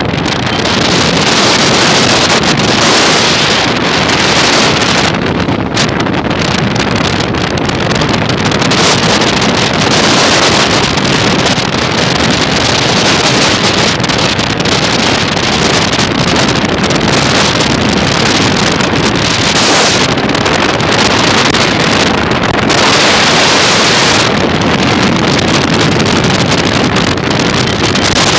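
Heavy wind rushing over the microphone of a moving vehicle, with engine and road noise under it, swelling and easing a little now and then.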